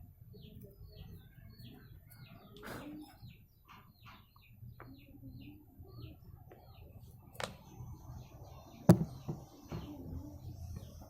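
A small bird chirping over and over in short, quick notes, with a few sharp clicks or knocks, the loudest about nine seconds in.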